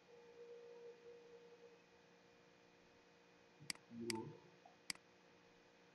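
Near silence with a faint steady tone in the first couple of seconds, then three sharp computer mouse clicks in just over a second, as a hexagon sketch is placed in the CAD program.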